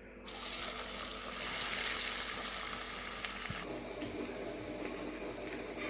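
Chicken pakoda batter deep-frying in hot oil: a loud sizzle starts suddenly, then eases after about three and a half seconds to a softer, steady sizzle.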